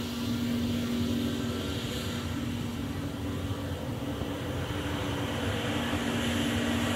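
Airbus A321neo's turbofan engines running at taxi power as the airliner rolls past: a steady low hum with fainter higher tones over a rushing noise.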